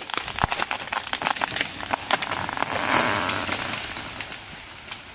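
A tree falling: a rapid run of sharp cracks and snaps of wood and branches, then the crash of the tree coming down about three seconds in, fading away.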